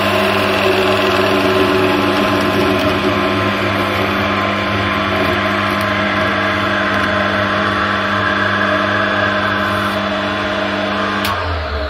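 Wood lathe running with a steady motor hum while a turning tool cuts a spinning linden (lime-wood) blank with a rough, even scraping. Near the end a click, and the motor hum stops as the lathe is switched off.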